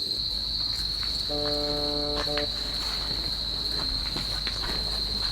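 Crickets chirring in a continuous high-pitched drone.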